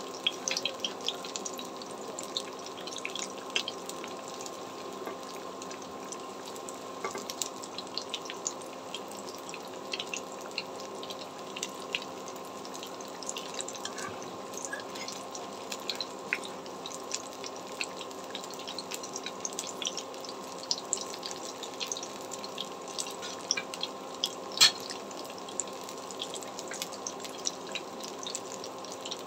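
Batter-coated cauliflower chops deep-frying in hot oil in a karai: a steady sizzle full of small crackles and pops, with one sharper pop late on. A steady low hum runs underneath.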